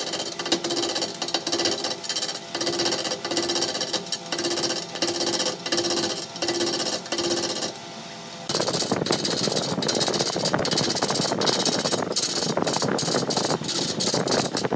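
A turning tool cutting into a large wooden blank spinning on a wood lathe, a rough chattering rattle with a pulse about twice a second. About halfway through the cutting drops away briefly, then comes back as denser, steadier cutting noise.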